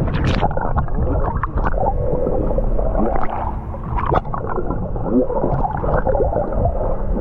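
A young whale entangled in a shark net calling in distress: a run of short moaning and squealing calls that rise and fall in pitch, over a steady low rumble.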